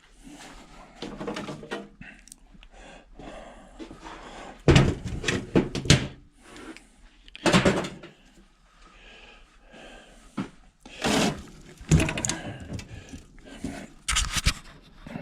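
Irregular knocks, clunks and rattles of metal parts inside a hot beverage dispenser being handled as wires are yanked off its motors and transformers, with the loudest knocks about five, seven and a half, eleven and fourteen seconds in.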